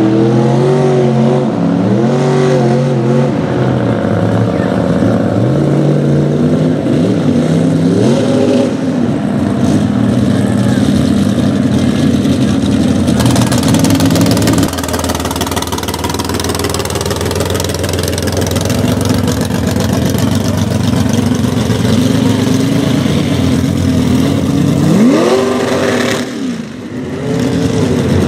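Chevy mega truck's engine revving up and down over and over as it churns through a mud bog. Partway through it gives way to a steadier engine note, with a sharp rising rev, a short drop and another rev near the end.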